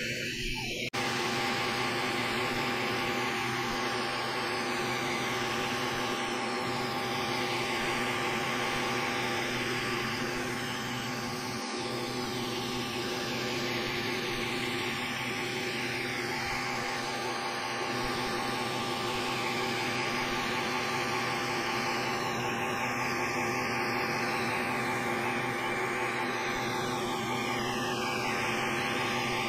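xTool S1 20W laser engraver running as it engraves text into a wooden plaque: a steady rush of air noise with a hum of several steady tones.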